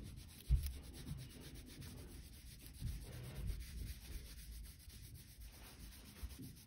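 Blue crayon scribbling back and forth across paper, a faint rubbing scratch as a stripe is coloured in, with a soft knock about half a second in.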